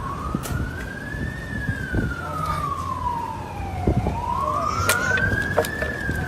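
A siren wailing, its pitch rising and falling slowly: it climbs for about a second and a half, sinks over the next two and a half, then climbs again. Under it are a low rumble and a few sharp knocks.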